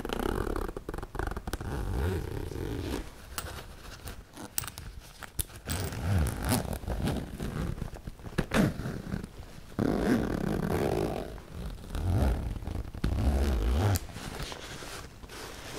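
A zipper on a fabric laptop bag being drawn back and forth in several separate strokes close to the microphone, with a few sharp clicks of the metal zipper pulls in between.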